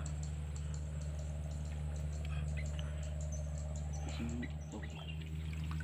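Quiet marsh ambience: a steady low hum with scattered faint, high, short chirps from small creatures.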